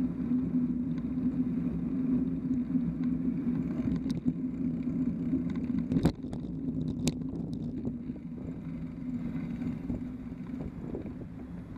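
Riding noise picked up by a camera on a moving bicycle beside city traffic: a steady low hum and road rumble, with a few sharp knocks and rattles around the middle, the loudest about six seconds in, after which it gets a little quieter.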